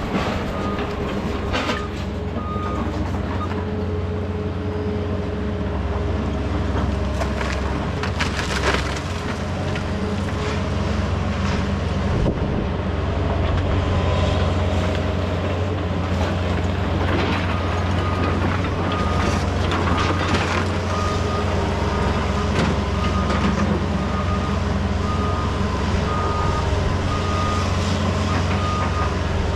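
Diesel heavy equipment running steadily under load, with scattered clanks and knocks. A backup alarm beeps at the start and again through the second half.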